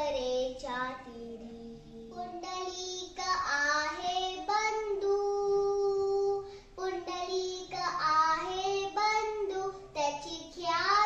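A young girl singing a Marathi devotional bhajan solo, with no instrument, in a clear child's voice, holding one long note about five seconds in.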